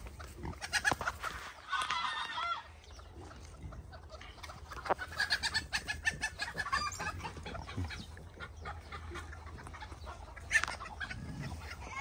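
Farmyard fowl clucking and calling on and off, with a longer call about two seconds in.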